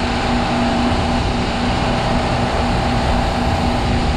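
Wakesurf boat's inboard engine running at a steady speed, a constant hum over the rush of its churning wake.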